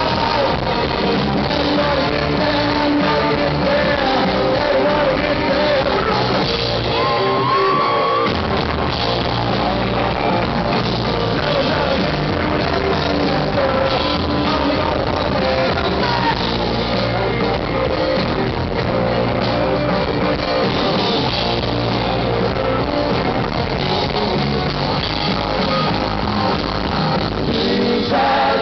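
Live rock band playing loud through a concert hall's PA, with guitars, bass, drums and singing, recorded from the crowd.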